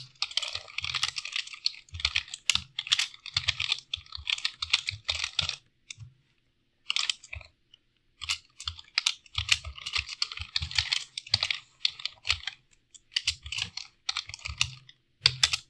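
Typing on a computer keyboard: quick runs of keystrokes, with a lull of about two seconds midway before the typing resumes.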